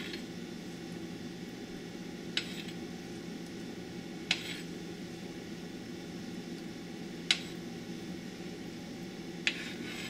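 A spoon clinking sharply against dishware four times, a few seconds apart, while skimming scum off a pot of simmering hen stew, over a steady low sound of the pot boiling hard.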